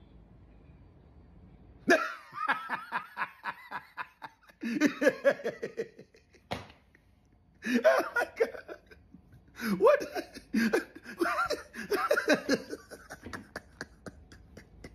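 A man laughing hard in long fits of rapid, pulsing ha-ha bursts. The laughter starts suddenly about two seconds in, then keeps breaking off and starting again.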